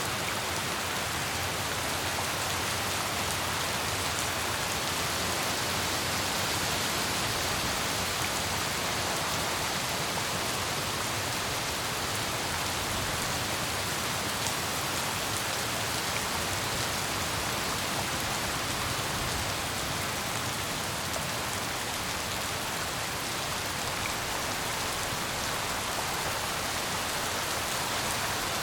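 Steady heavy rain falling and pattering on surfaces, an even hiss without pauses or thunder.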